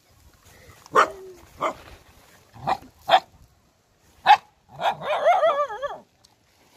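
Street dogs barking: about six short, sharp barks spaced out, then a drawn-out wavering whine for about a second near the end.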